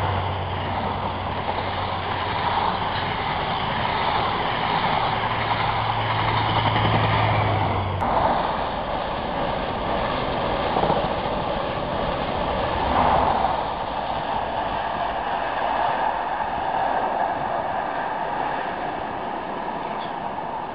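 Passenger train passing close by at speed: a dense rushing of wheels on rails over a steady low hum. About eight seconds in, the hum stops abruptly and only a rushing train noise continues, easing slightly toward the end as the train recedes.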